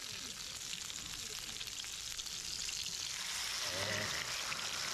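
Food sizzling and frying in a hot pan: a dense, steady crackle that grows a little louder partway through.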